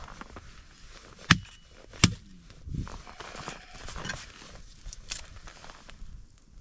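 Two sharp clicks, about three-quarters of a second apart, near the start, over soft scattered rustling and crunching.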